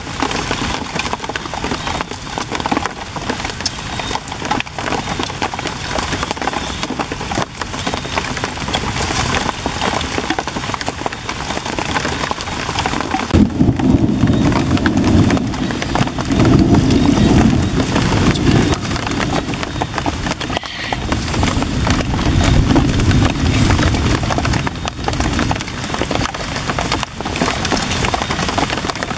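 Steady rain falling on leaves, with close eating sounds: a wooden spoon clicking against a clay bowl, slurping and chewing. From about halfway through, bouts of heavy low muffled rumble come and go over the top.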